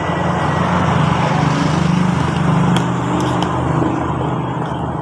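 Steady low engine noise of a motor vehicle running close by, swelling slightly in the middle, with a few light metal clinks of a spoon and fork on a plate.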